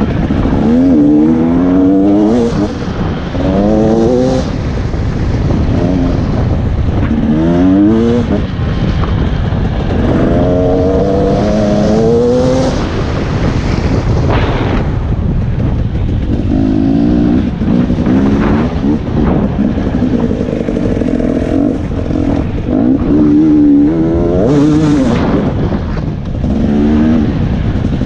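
Dirt bike engine revving up and dropping back again and again as it accelerates and shifts through the gears. Each rise in pitch lasts a second or two, and one longer, slower climb comes about halfway through.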